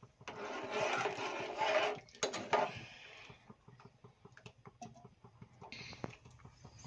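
Liquid poured from a glass container into a steel pot for about two seconds. Then come a few sharp clinks and faint scrapes of a steel spoon stirring the kheer in the pot.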